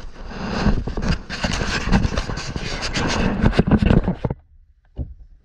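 Close handling noise of a hand-held action camera: hands, fabric and plastic rubbing and scraping right on the microphone, with many small knocks. It stops about four seconds in, and one short tap follows.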